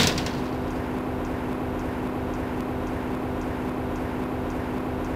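A steady mechanical hum with a held low tone, with faint regular high ticks over it; a short loud hit right at the start.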